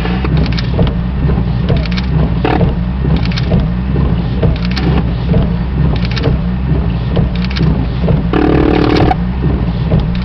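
Steady low vehicle rumble with scattered short clicks. A brief buzzing tone sounds about eight seconds in.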